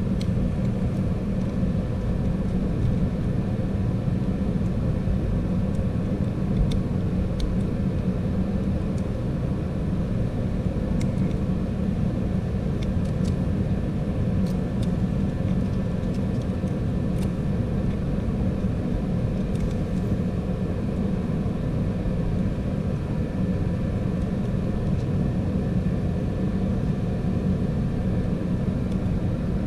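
Steady low rumble of a shop heater running, with a few faint light metallic clicks from hand tools working on the valve train.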